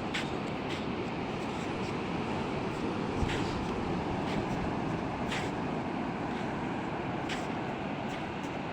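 Steady rushing wash of sea waves on a beach, with short hissing splashes now and then.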